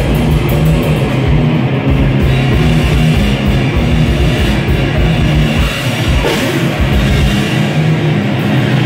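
Loud live heavy band playing distorted electric guitar and drum kit, heard from within the crowd.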